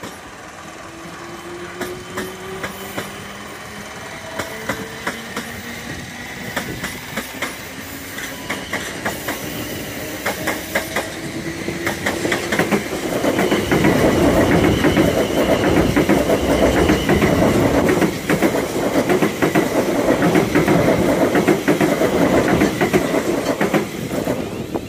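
Electric multiple-unit trains on the line: for the first half, a rising electric motor whine as a train gathers speed, with wheel clicks over the rail joints coming faster. From about halfway, a South Western Railway Class 701 Arterio passes close, its wheels giving a loud, steady rumble and clatter until it has gone by, just before the end.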